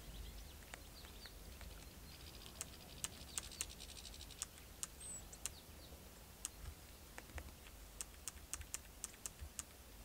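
Control dials of a Canon EOS-1D X camera clicking through their detents as a gloved hand turns the shutter speed down for slower, snow-blurring exposures and lowers the ISO. Small, quiet clicks come singly and in quick runs, bunched most tightly near the end.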